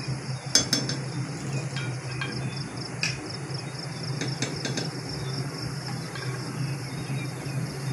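Wooden spoon knocking and scraping against a stainless steel pot as seasonings are stirred into simmering curry: a few sharp knocks, the loudest about half a second in. Steady insect chirring runs underneath.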